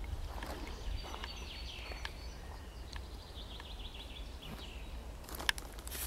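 A forest songbird sings a series of short, high notes that step down in pitch over about three seconds. Near the end come a few sharp footstep clicks and cracks from walking on dry leaf litter, one of them the loudest sound, over a steady low rumble.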